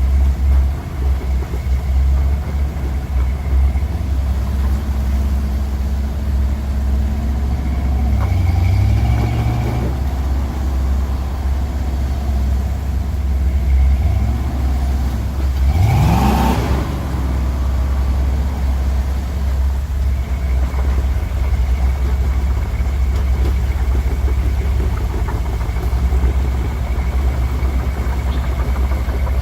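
Vehicle engine running under load with a heavy low rumble; about sixteen seconds in it revs up sharply, its pitch rising quickly, along with a brief rush of noise.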